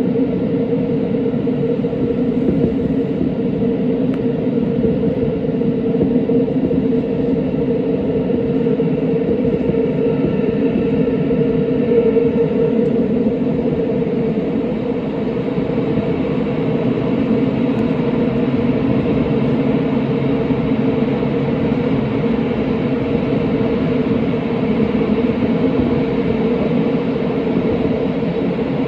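Tokyo Metro 17000 series subway train running at speed through a tunnel, heard from inside the car: a continuous rumble of wheels on rail with a steady low hum.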